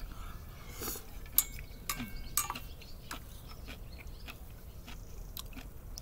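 Someone eating miso soup with chopsticks from a metal saucepan: quiet chewing, with a scattering of sharp clicks as the chopsticks tap the pot. A couple of the clicks ring briefly, in the first half.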